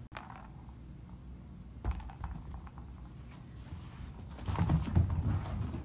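Soft thumps and scuffling of a kitten playing with a ball on carpet, with a single knock about two seconds in and a louder flurry of thumps near the end.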